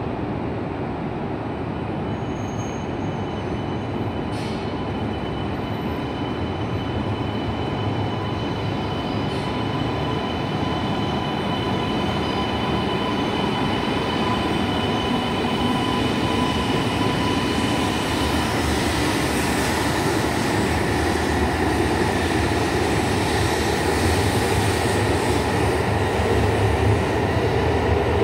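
E2 series Shinkansen train pulling out and gathering speed past the platform, its running noise building steadily. A thin electric whine runs over the rumble and changes pitch about two-thirds of the way through.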